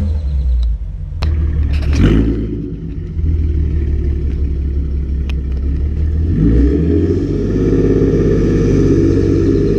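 Car engine running while the car is driven, with a few sharp clicks; the engine note changes about six and a half seconds in.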